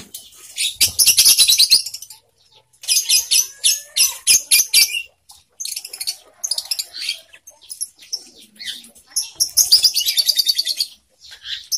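Lovebirds chirping: bursts of rapid, high-pitched chattering chirps, each about a second long, with short gaps between them.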